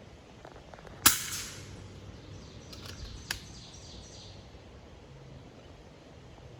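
A single sharp crack of an unsuppressed air rifle shot about a second in, with a short fading tail, followed about two seconds later by a smaller sharp click.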